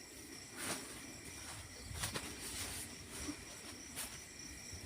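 Night insect chorus: crickets trilling steadily at a few high pitches, with a few faint knocks or rustles about one, two and four seconds in.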